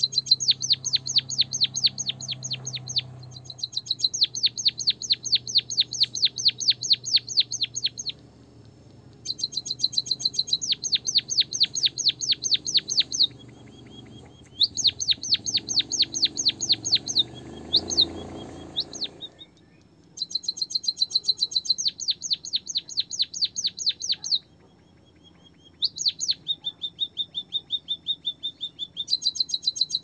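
Caged white-headed munia chirping in rapid trains of sharp, high notes, about four to five a second. The trains come in bursts of several seconds separated by short pauses.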